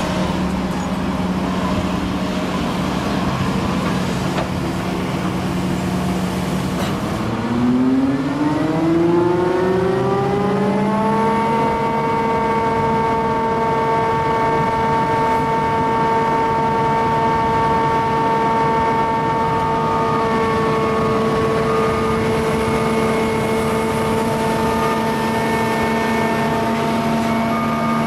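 Heavy diesel machinery engine running steadily, then revving up about seven seconds in, its pitch rising over some four seconds and holding at high speed.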